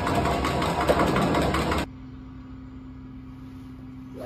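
Golf balls clattering out of a Range Servant driving-range ball dispenser into a plastic basket over the machine's running noise, cutting off abruptly about two seconds in. A low steady hum follows, then at the very end one sharp crack of a golf club striking a ball.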